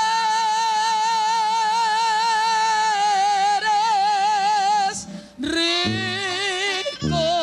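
A woman's ranchera voice holding one long high note with a wide, even vibrato for about five seconds, then, after a short break, singing a phrase of lower notes with vibrato.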